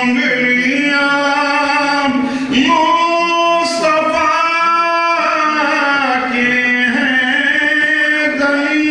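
A man singing Urdu verse unaccompanied, in long held notes that slide from one pitch to the next.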